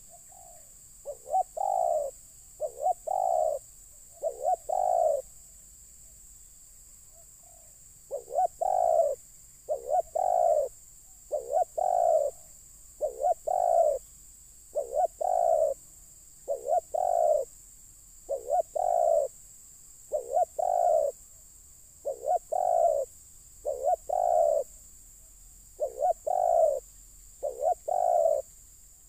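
Spotted dove cooing: short calls repeated in a steady rhythm, about one every second and a half. There is a brief pause about a quarter of the way in.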